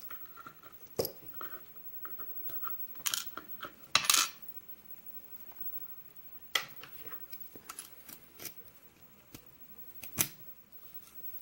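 Small metal clicks and clinks of a Ruswin lock being taken apart, with a short rattle of loose metal parts about four seconds in.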